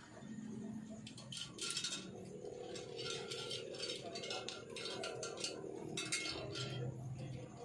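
Stiff copper wire clinking and rustling as it is threaded and wound by hand onto a small coil core: many short, light metallic ticks and clinks at an irregular pace.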